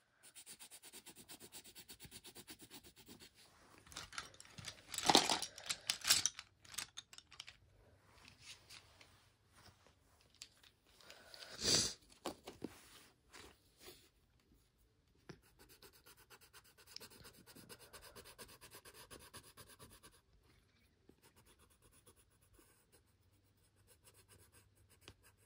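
Colored pencil shading on the paper of a coloring book in rapid, scratchy back-and-forth strokes, coming in stretches. A few louder brief noises fall between them, around five and twelve seconds in.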